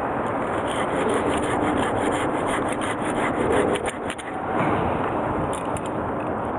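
Hand saw cutting through a piece of firewood, a continuous rasping of repeated back-and-forth strokes.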